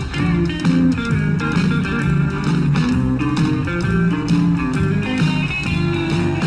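Background music: a guitar-led song with a steady beat.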